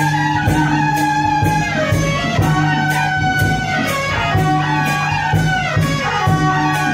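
Guitar-led music with a steady beat of about three beats a second and a moving melody line over held tones.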